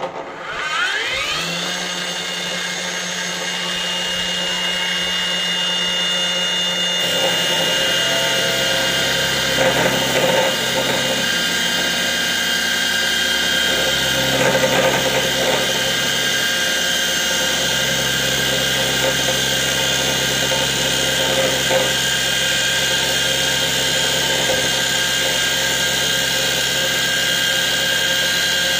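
Low-speed, water-cooled abrasive cut-off saw for stainless steel starting up, its motor whine rising in pitch over the first second or two. It then runs steadily as the disc grinds slowly through a stainless strip at a 45-degree angle, with a high hiss added from about seven seconds in.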